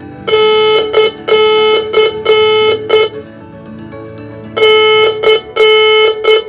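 A Morse code practice oscillator sends the semicolon (dah-dit-dah-dit-dah-dit) as one steady tone keyed on and off. After a short pause, about halfway through, the signal starts again.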